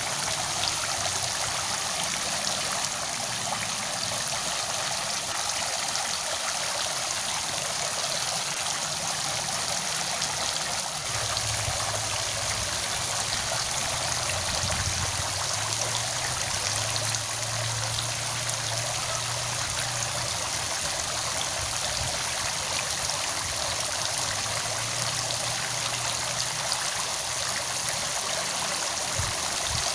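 Steady rushing of flowing water, with a faint low hum that joins about a third of the way in and fades out near the end.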